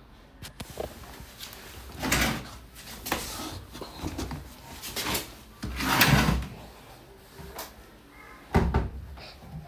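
Several dull knocks and bumps a few seconds apart, with rustling handling noise between them, like a drawer or door being moved.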